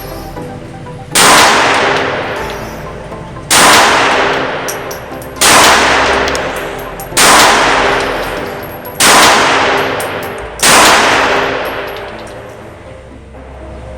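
Glock G25 pistol firing .380 ACP, six single shots spaced about one and a half to two seconds apart. Each shot rings out in a long echoing decay.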